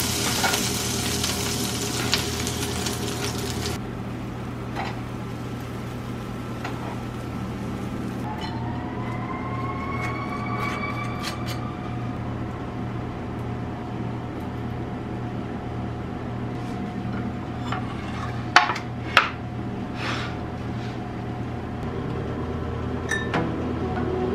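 Butter sizzling in a frying pan for the first few seconds, over a steady low hum that runs on after the sizzle stops. Later come a faint rising whine and, about two-thirds of the way through, a few sharp clinks of dishes or utensils.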